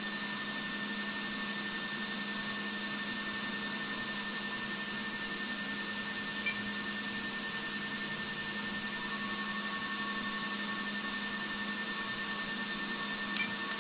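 Steady hiss with a low hum at an even level throughout, with a faint higher tone joining about nine seconds in.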